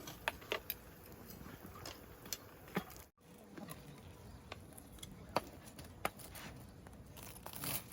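Scattered light clicks and taps over a faint background hiss, broken by a sudden brief cut to silence a little past three seconds in.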